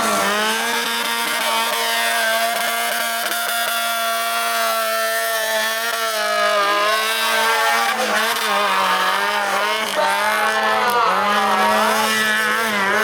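Off-road 4x4's engine held at high revs under load, a steady pitched drone that sags and picks up again a few times.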